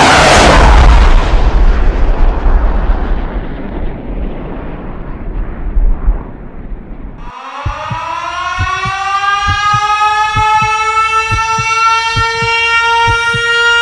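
Produced DJ-intro sound effects: a jet-like whoosh that fades away, then about halfway through an air-raid siren winds up in pitch and holds steady over a kick-drum beat of about two thumps a second.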